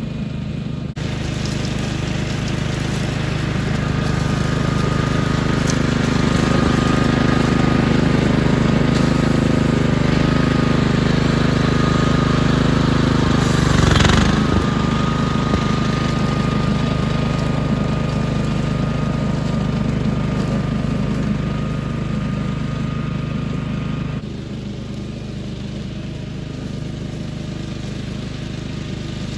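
Billy Goat hydraulic-drive walk-behind brush hog running steadily at full throttle while cutting weeds and brush, with a thin whine over the engine. It grows louder as the machine comes close, is loudest about halfway through with a brief crackle, then fades as it moves away, dropping a little again near the end.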